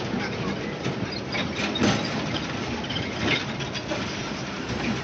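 Inside a moving small bus: a steady engine drone mixed with road noise, with a few short clatters from the cabin, about two seconds in and again a little past three seconds.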